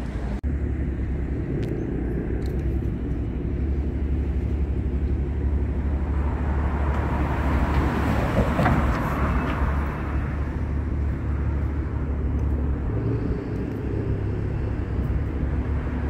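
Steady low rumble of motor vehicle engines. One vehicle passes, growing louder and peaking about halfway through, then fading.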